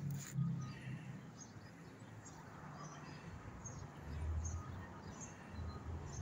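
Faint outdoor ambience: scattered short bird chirps over a low rumble that swells briefly about four seconds in.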